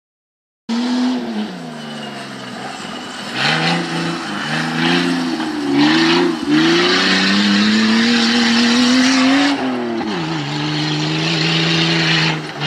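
Toyota off-road race truck's engine revving hard under load, its pitch climbing and dipping again and again, then falling off about ten seconds in and holding lower, with a loud rushing hiss over it. It cuts in suddenly just under a second in.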